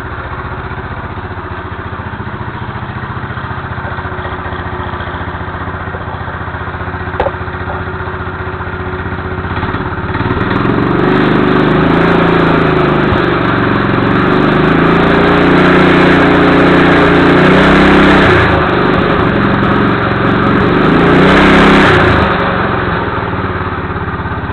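Motorized bicycle engine idling steadily, then revved up from about ten seconds in, its pitch rising and falling for some twelve seconds before it drops back to idle near the end.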